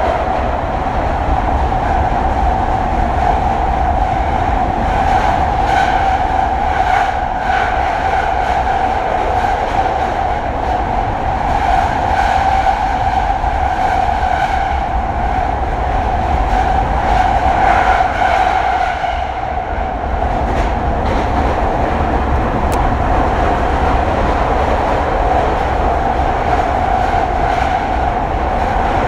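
Running noise heard aboard a JR East E721-1000 series electric train in the Senzan Tunnel: a loud, steady rumble with a strong droning tone, broken by scattered clicks from the wheels and rails.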